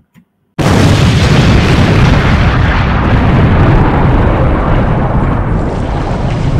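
Loud cinematic rumbling boom sound effect, starting suddenly about half a second in and rumbling on without letting up.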